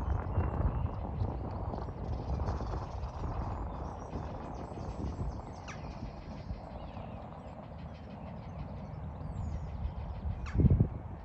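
Wild birds giving a few short calls over a steady low rumble, with one loud thump near the end.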